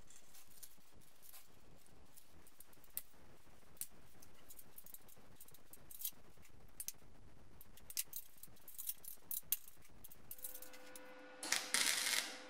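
Light clicks and taps of a small sheet-metal patch and tools being handled. Near the end a steady hum comes in, then a short burst of MIG welding, the crackling arc, as the patch is welded into the rusted wheel housing.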